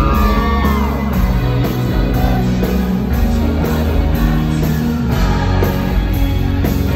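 Live rock band playing loud, with a steady beat and no sung words.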